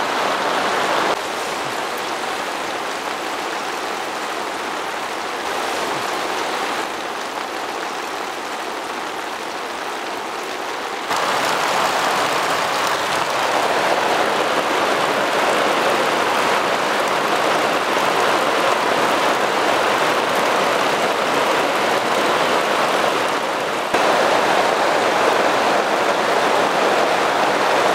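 Torrential cloudburst: heavy rain pouring down in a steady, loud hiss. It gets abruptly louder about 11 seconds in and again about 24 seconds in.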